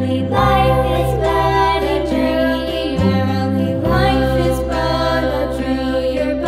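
Background music with sustained, choir-like singing voices over a steady bass.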